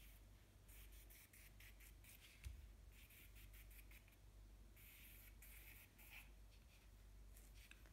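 Faint scratching of a willow charcoal stick on paper, in short, separate strokes, with one soft low thump about two and a half seconds in.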